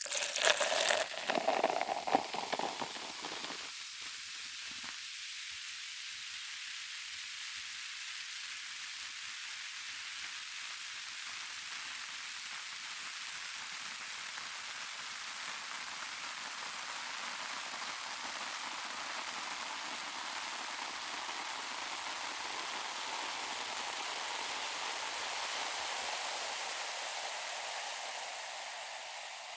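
Carbonated drink fizzing: a dense, steady hiss of bubbles. It follows a few seconds of crackling and clicks at the start, swells slightly, then fades near the end.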